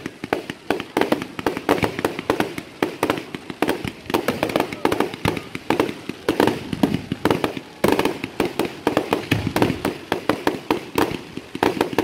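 Aerial fireworks shells launching and bursting in a dense, rapid barrage of bangs and crackles, several a second.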